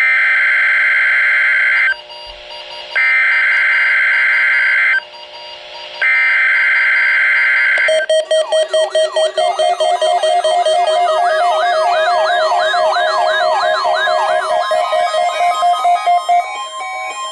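NOAA Weather Radio SAME header: three loud two-second bursts of shrill digital data tones about a second apart, opening the Required Weekly Test. From about eight seconds in, a warbling, siren-like alert tone follows: repeated rising and falling sweeps over a steady tone that pulses rapidly at first. It cuts off shortly before the end.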